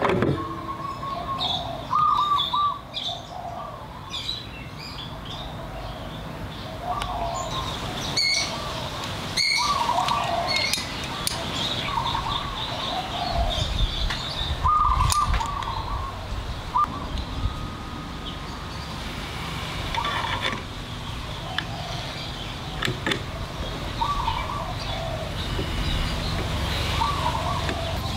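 Birds chirping, with short calls repeating every second or two, and a few sharp clicks scattered through.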